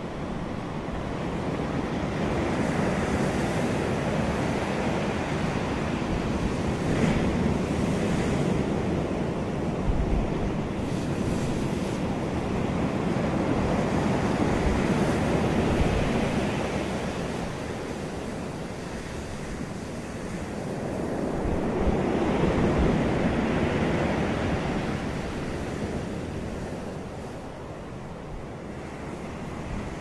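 Ocean surf breaking and washing ashore in a continuous rush. It swells and eases in slow surges: a long loud stretch through the first half, a lull, then another surge about two-thirds of the way in.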